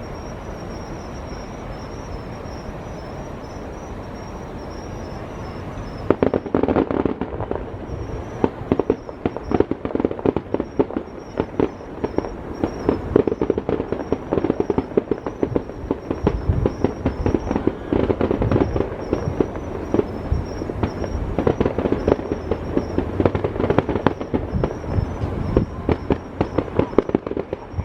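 Aerial fireworks display: after about six seconds of quieter background, a rapid barrage of firework bursts starts, dense bangs and crackles following one another almost without pause until near the end. Insects chirp in the background throughout.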